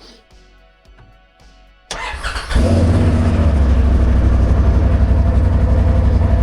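Quiet background music, then about two seconds in a Polaris RZR side-by-side's engine cranks briefly, catches and settles into a steady idle.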